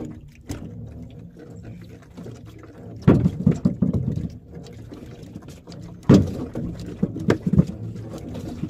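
Knocks and thumps on a small wooden fishing boat as a handline is worked, in two loud bunches about three and six seconds in, over a steady low rumble.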